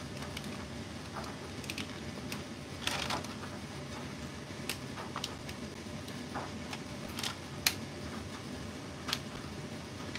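Plastic stick-lids being pressed and clicked into a plastic popsicle mould: scattered sharp clicks and taps, with a longer scraping sound about three seconds in and the loudest click about three-quarters of the way through.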